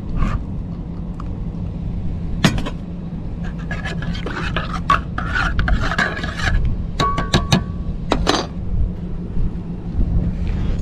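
Scraping and clinking of hard gear being handled, with a few sharp clicks, over a steady low rumble.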